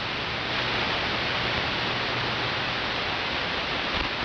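Steady hiss of shortwave static from a software-defined radio's audio output. No AM broadcast station is heard in it: the AM bandstop filter in line before the RTL-SDR dongle is keeping the broadcast image out.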